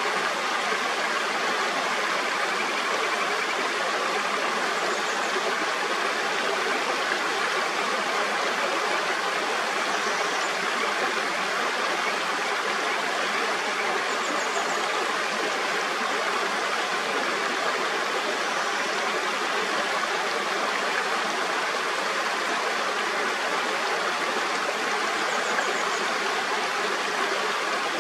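Mountain stream flowing steadily, an even rush of water, with a few faint high chirps now and then.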